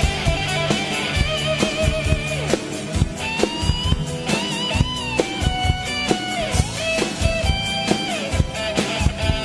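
Rock music in an instrumental break: an electric guitar plays a lead line with bent and wavering notes over a steady rock beat. A drum kit with cymbals is played along with it.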